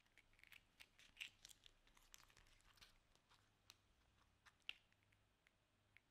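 Faint crinkling and crackling of a thin, stiff potato-starch bioplastic film being folded and pressed flat by hand, in many small irregular crackles with a sharper snap about a second in and another near the end.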